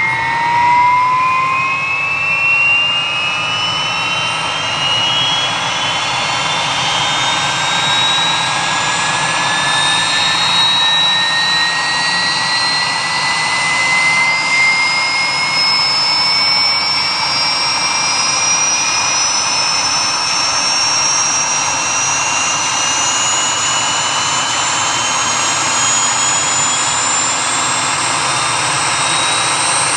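Airbus AS332 Super Puma's turboshaft engines starting up: a high turbine whine that keeps climbing in pitch over a steady rushing noise as the engines spool up.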